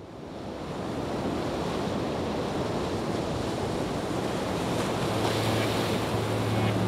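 Steady rushing noise of sea waves and wind, fading in over the first second. A low steady hum comes in about five seconds in and grows louder.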